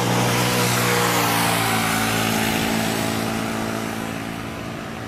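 Airbus A320neo's jet engines loud during the landing rollout, swelling about a second in with a low hum beneath a wide rushing noise, then fading steadily as the airliner rolls away down the runway.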